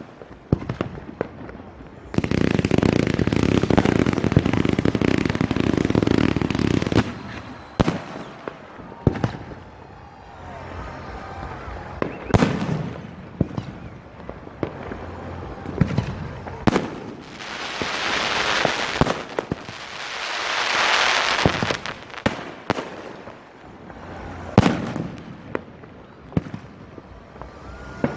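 Fireworks display: aerial shells going off in a string of sharp bangs and crackle, with a dense, loud barrage lasting several seconds near the start.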